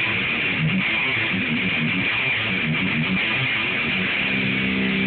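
Electric guitar played through an amplifier in fast shred runs of quickly changing notes, then sustained near the end.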